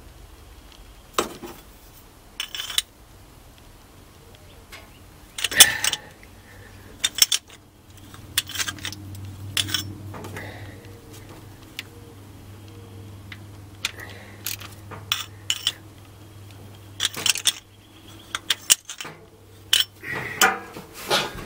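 Metal hand tools clinking and knocking: a socket wrench and extension being handled and set onto the thermostat housing bolts, in a scattering of sharp separate clinks, with bunches about a quarter of the way in and near the end.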